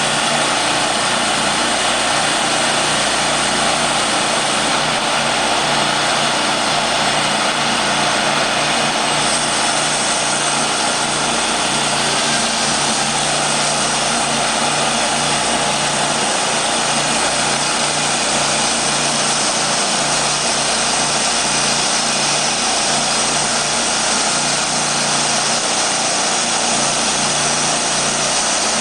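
Timberking B-20 band sawmill running steadily, its 27 hp Kohler gasoline engine driving the band saw blade: a loud, even mechanical noise.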